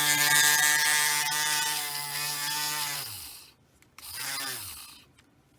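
Small electric rotary tool running at a steady pitch, then winding down to a stop about three seconds in, with a second brief spin-up and wind-down a second later. It has just been used to cut a small section off a brass latch piece.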